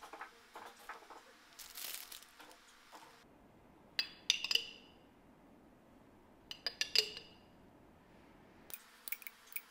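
A metal spoon clinking against a container in two short runs of light, ringing taps while pizza sauce is scooped, then lighter clicks near the end as sauce is spooned into a metal muffin tin. Soft rustling fills the first few seconds.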